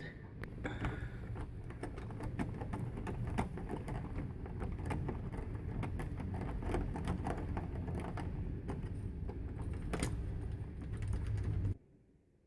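Phillips screwdriver backing out the mounting screws of a Kwikset doorknob: a run of small irregular clicks and scrapes of metal on metal over a low handling rumble. It cuts off abruptly near the end.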